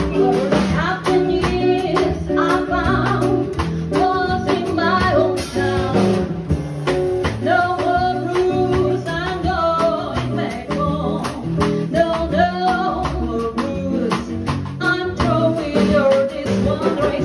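An acoustic quartet playing a song live: a singer's voice over plucked guitar, with a steady beat of light percussion.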